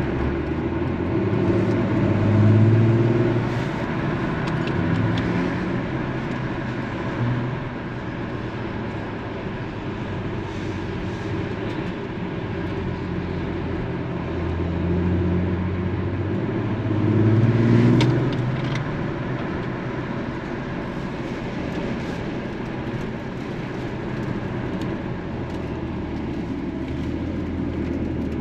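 A car driving at low speed, with steady engine and road noise. The engine rises in pitch twice as it accelerates: about two seconds in and again around seventeen seconds in.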